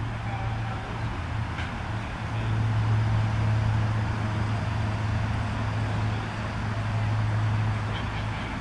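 A steady low engine hum over outdoor background noise, strongest through the middle and fading near the end.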